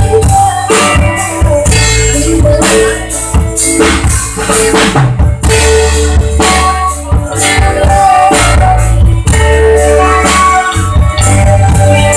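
Loud band music: a drum kit with snare and bass drum over a heavy, steady bass and a sustained melody line, playing an instrumental passage with no singing.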